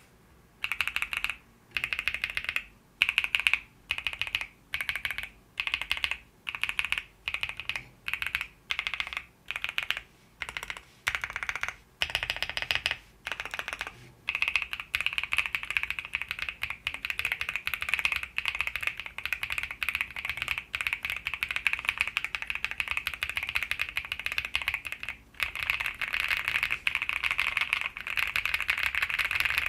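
Mechanical keyboard fitted with Akko Cream Yellow V3 Pro linear switches, lightly factory-lubed and with no tape mod, being typed on. For the first half, short bursts of keystrokes come about every two-thirds of a second, then fast continuous typing follows, with a brief pause near the end. The sound is clacky rather than deep.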